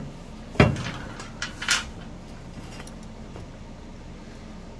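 Metal clinks and knocks from a hand tool on the nuts of a riding mower's friction-disc hub as they are tightened down: a sharp knock about half a second in, a ringing clink a second later, then a few light ticks.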